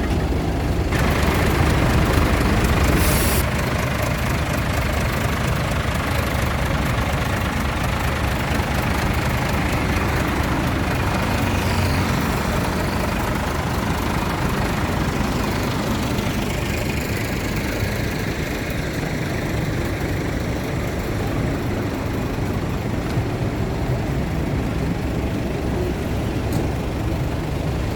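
Large tour bus's diesel engine running at idle, loudest in the first few seconds, with a short sharp hiss of air about three seconds in.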